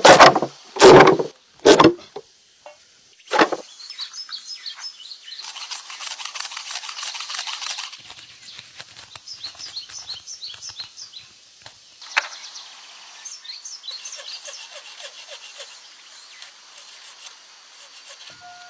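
A metal blade chopping through a bundle of dry grass stalks in four sharp strokes, the first three close together. Then a small knife scraping and peeling the stalks in repeated rasping strokes, while birds chirp throughout.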